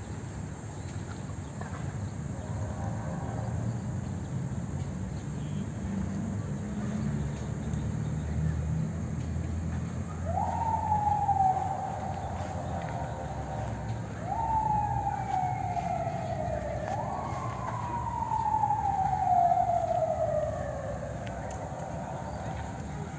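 A siren wailing in three sweeps, starting about ten seconds in; each jumps up quickly and slides slowly down, the last one the longest. A low rumble runs under the first half.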